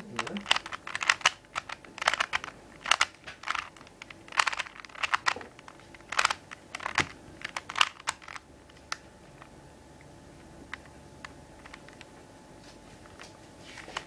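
Rubik's cube being turned by hand: quick, irregular clicks and clacks of its plastic layers rotating. The clicks come thick and fast for the first eight seconds or so, then thin out to a few faint ticks.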